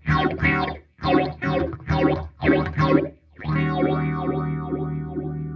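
Electric guitar played through a kit-built StewMac Lightcycle Phasor II phaser pedal (a Mu-Tron Phasor II clone) into a Mesa Boogie Badlander amp. A run of short, choppy chord stabs for about three seconds, then a chord left to ring and fade with a few single notes picked over it.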